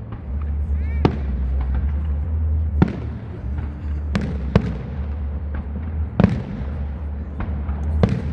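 Aerial firework shells bursting in the sky: about six sharp bangs at irregular intervals, each trailing off in an echo.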